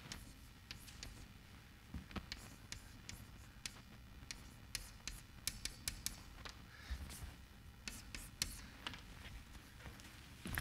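Chalk writing on a blackboard: a faint run of irregular taps and scratches as a diagram is drawn.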